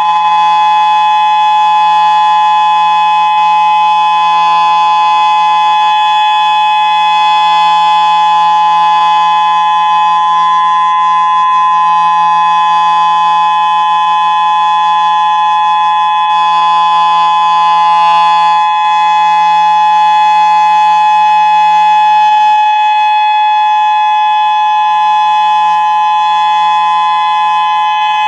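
Federal Signal Modulator electronic warning siren sounding a loud, unchanging steady tone, a chord of several pitches, Hawaii's steady-tone attention alert signal.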